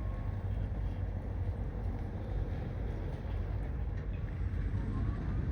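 Engine of a rigid hull inflatable rescue boat running steadily with a low, even rumble.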